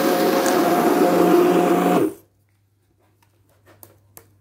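Hand-held immersion (stick) blender running at a steady speed in a pot of cooked apples, puréeing the remaining lumps into applesauce. It cuts off suddenly about two seconds in, and a few faint clicks follow.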